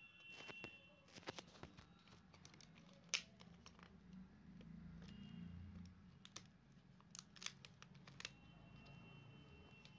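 Faint handling noise: soft crinkling and scattered small clicks as fingers peel tape and work a laptop display panel's cable connector loose, with one sharper click about three seconds in.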